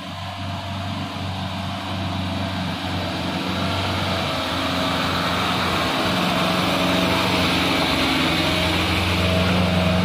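Isuzu Elf NMR light truck's diesel engine pulling steadily up a muddy slope. It grows louder as the truck approaches and passes close by.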